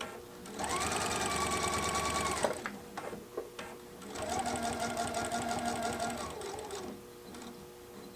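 PFAFF Performance Icon sewing machine running in two bursts of about two seconds each, stitching a straight top stitch through thick towel fabric, with a few light clicks in the pause between bursts.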